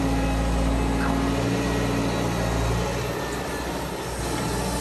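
Liebherr R940 Demolition excavator's diesel engine running steadily, with a steady tone over it that stops a little before halfway through. The level drops slightly near the end.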